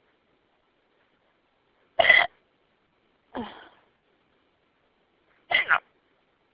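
A person's hiccups from a bad case of the hiccups: a short, loud hic about two seconds in, a softer, fading sound about a second later, and a quick double hic near the end.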